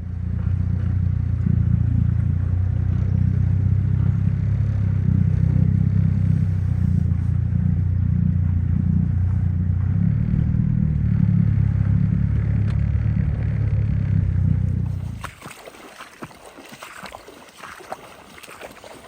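Boat engine running steadily at one pitch, loud and low. About fifteen seconds in it cuts off suddenly, leaving quieter wind and water noise with scattered clicks.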